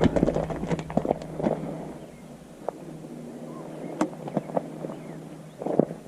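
Fishing rod and reel being handled for a cast: a quick run of small clicks and knocks in the first second and a half, a few scattered ones after, and a short cluster near the end.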